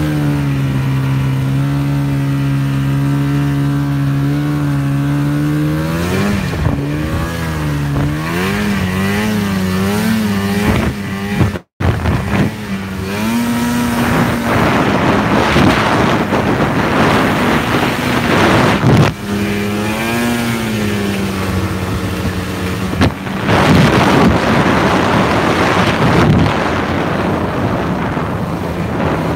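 Snowmobile engine running under way, holding a steady pitch at first, then rising and falling as the throttle changes. The sound cuts out for an instant near the middle. After that a loud rushing noise takes over, with the engine's pitch coming and going beneath it.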